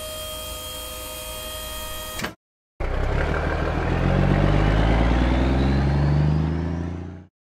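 Cartoon dump truck sound effects: a steady hydraulic hum with a few held tones as the tipper body lowers, which cuts off after about two seconds. Then the truck engine accelerates away, louder, its pitch rising, and stops shortly before the end.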